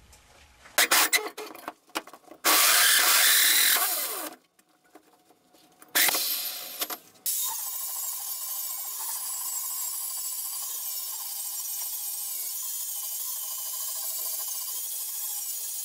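Angle grinder grinding the paint off a steel propane bottle down to bare metal. A few short, loud bursts of grinding come in the first seven seconds, then a steady grind with a faint wavering whine.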